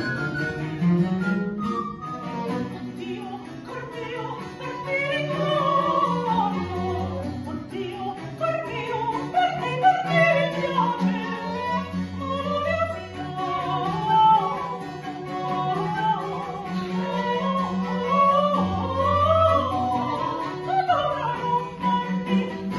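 Baroque chamber music played live on period instruments: a soprano sings with wavering vibrato over recorder, baroque violin, baroque cello and harpsichord. The voice comes in about five seconds in, after a stretch that is instruments only.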